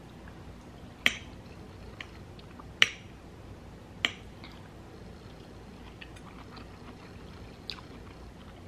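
A metal fork clicking against a plate several times as food is picked up, the loudest click about three seconds in, with quiet chewing between.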